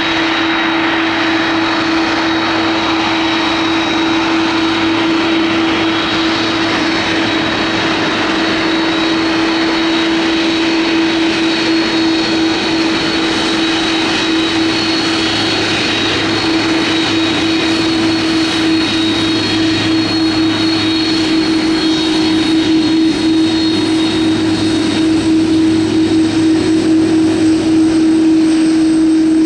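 Jet airliner engines running with a steady drone and a constant hum, growing slightly louder toward the end.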